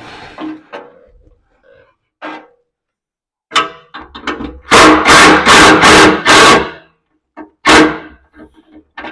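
Power impact wrench run in five short, loud bursts in quick succession, then once more, loosening exhaust bolts so the muffler's bolt holes can be lined up.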